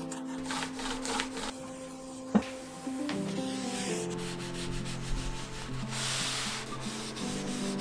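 Strokes of sandpaper rubbing over wood, coming in scratchy stretches, with a single sharp knock about two and a half seconds in. Background music with held chords plays underneath.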